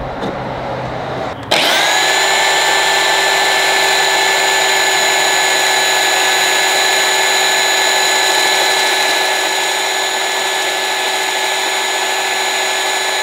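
Belt sander switches on about a second and a half in, spins up quickly and runs with a steady high whine and sanding hiss while a small piece of wood is held against the belt. It is switched off at the end and begins to wind down.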